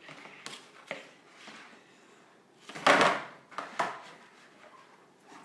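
Plastic highchair tray being handled: scattered light knocks and one louder clatter about three seconds in.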